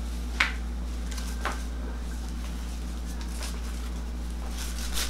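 Hands rubbing and pressing on a bare back during a massage, with a few brief rustling strokes over a steady low hum.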